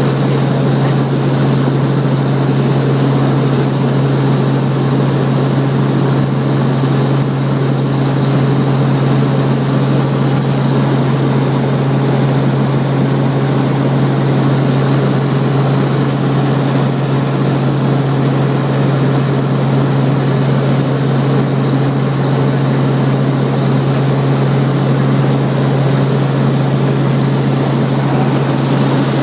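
Helicopter in flight: a steady, loud drone of rotor and engine, with a strong low hum that holds unchanged throughout.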